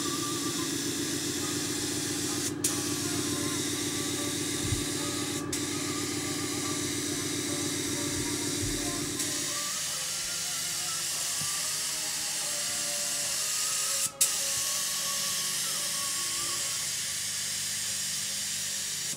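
Compressed-air spray gun hissing steadily as it sprays primer onto a sailboat hull. The hiss breaks off for an instant three times, and a low steady hum underneath stops about halfway through.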